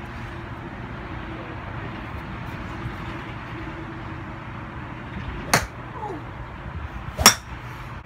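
Two sharp golf iron strikes on range balls, about a second and a half apart, the second louder, over a steady low hum.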